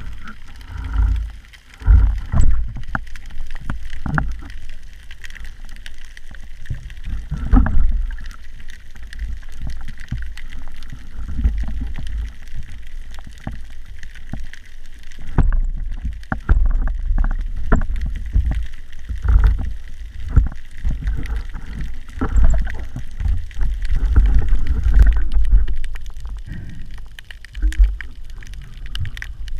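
Muffled underwater sound picked up through a camera's waterproof housing on a wooden speargun: a low rumble of water moving past as the spearfisher swims, rising and falling, with irregular knocks and thumps.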